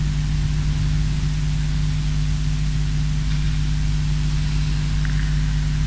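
Steady low electrical hum with an even hiss over it from a live sound system, running unchanged.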